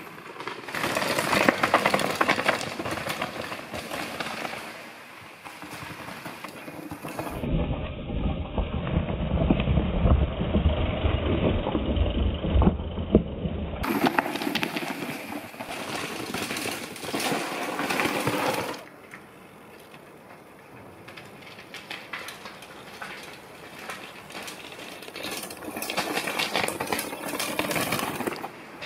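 Mountain bike descending a rocky trail, picked up by a camera on the bike or rider: tyres crunching over stones and loose rock, with dense rattling clicks from the chain and frame. For several seconds in the middle, heavy low rumble of wind on the microphone covers it, and the sound changes abruptly at a few cuts.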